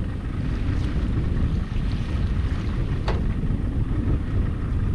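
Small fishing boat under way: a steady low rumble with wind buffeting the microphone. There is one short click about three seconds in.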